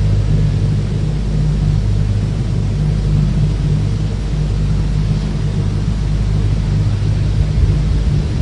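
Loud, steady low hum and rumble with an even hiss over it.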